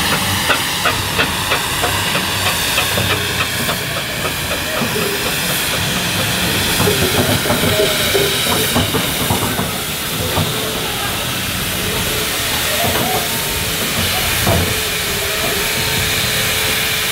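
Steam road roller on the move, its exhaust beating in a regular chuff about two to three times a second over the first few seconds, over a steady hiss of steam.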